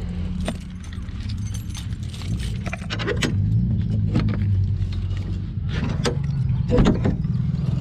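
Keys jangling and sharp metal clicks at the latch of an enclosed cargo trailer's rear door as it is being unlocked, over a steady low engine hum.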